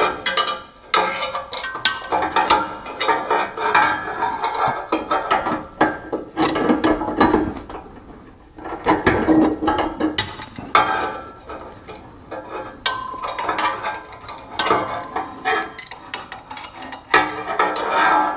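Hand socket ratchet clicking in spells as bolts are turned to fit a parking brake lever bracket, with clinks of metal parts being handled.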